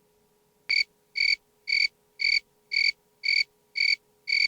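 Cricket chirping in a steady rhythm, about two short, high chirps a second.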